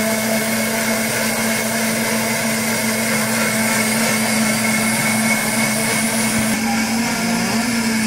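Countertop blender motor running at a steady high speed while blending mango juice, with a brief dip in pitch near the end.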